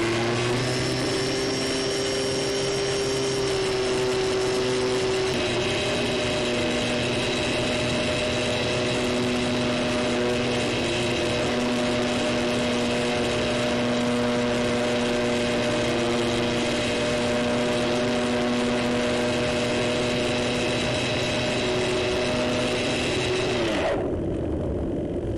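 Electric motor and propeller of a Multiplex FunCub RC seaplane, heard from a camera mounted on the plane: a loud, steady whine made of several tones, at high throttle through take-off from the water and the climb. About 24 seconds in the motor is throttled back and the whine drops away, leaving rushing air noise.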